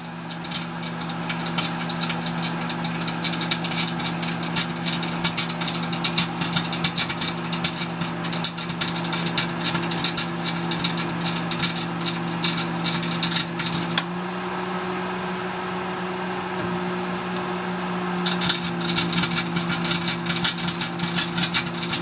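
Microwave oven running with a steady electrical hum while a 6JS6 vacuum tube inside it arcs with a dense, rapid crackling. The crackling stops about 14 seconds in, leaving only the hum, and starts again about four seconds later.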